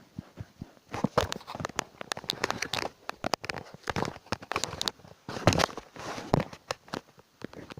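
Rapid, irregular clicking and knocking: many small sharp hits, starting about a second in.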